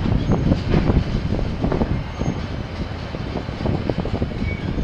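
KiwiRail train passing: a steady low rumble with irregular knocks.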